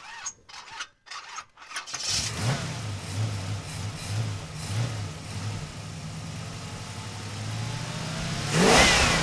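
A car's V6 engine starting after a few clicks, settling into a steady idle, then revving briefly near the end.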